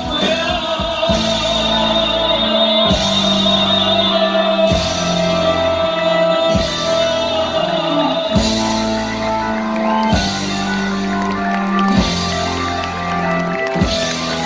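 Rock band playing live in a large hall: a closing passage with bass notes changing every couple of seconds under drums and a long held higher note.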